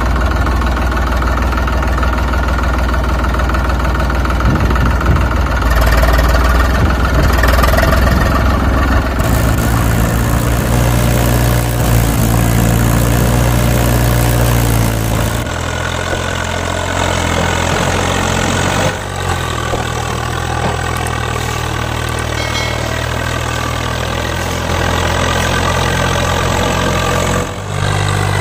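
Recorded diesel tractor engine sound running steadily at idle, dubbed over the toy tractors. The engine sound switches abruptly to a different engine recording about a third of the way in, again about halfway, and once more near the end.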